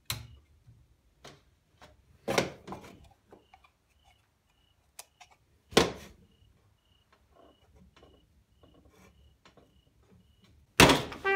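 Scattered knocks, clicks and rubbing from a hand and camera handling things on a shelf, with a faint high beep repeating about twice a second. Loud music comes in near the end.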